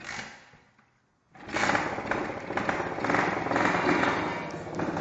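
A short noise at the start, then the small 90cc engine of a Baja Dirt Runner catches suddenly about a second and a half in and keeps running steadily.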